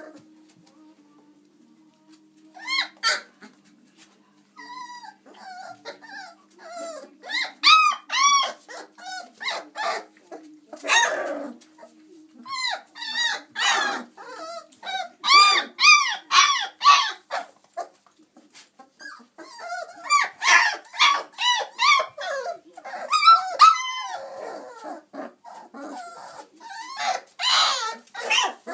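Chocolate Labrador Retriever puppies, under four weeks old, yipping and whining in many short high-pitched calls as they play, often several in quick succession, starting a few seconds in.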